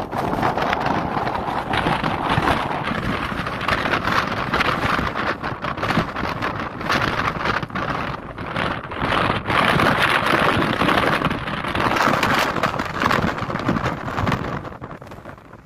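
Wind buffeting the microphone: a loud, gusting rush that rises and falls throughout and eases near the end.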